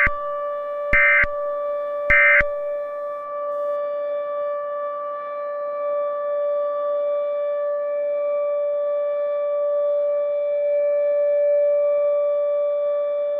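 Emergency Alert System end-of-message data bursts: two short buzzy squawks about a second apart near the start. Under and after them a steady electronic tone with overtones holds at one fixed pitch.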